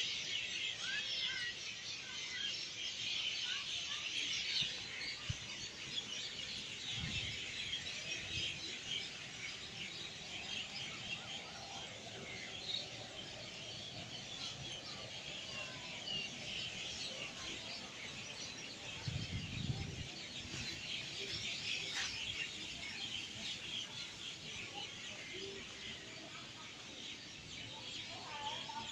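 A large crowd of birds chirping and calling all at once in the trees at dusk, a dense unbroken chatter. A couple of brief low thumps come through about seven and nineteen seconds in.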